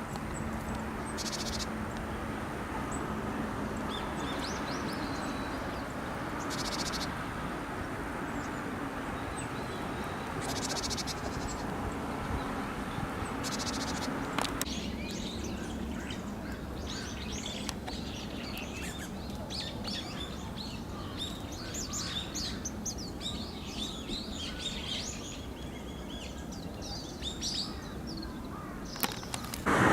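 Small wild birds calling: a few short, harsh buzzy calls in the first half, then many quick high chirps and twitters from about halfway on, over a steady low background hum.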